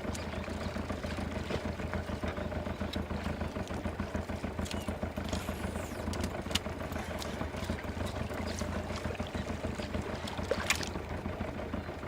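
Boat's outboard motor running at a steady speed, a constant low hum, with a few light knocks, the sharpest near the end.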